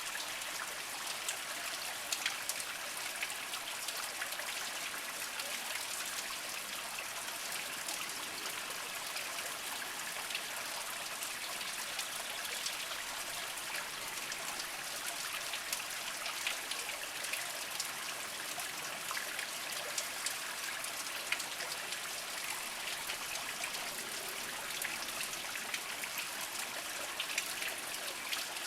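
Small mountain spring trickling slowly over mossy rocks: a steady splashing with many small drip-like ticks.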